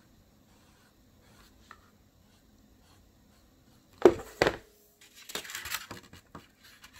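Quiet at first, then two sharp knocks in quick succession about four seconds in, from the filming phone being bumped and jostled, followed by a second or so of rustling and scraping as it is handled.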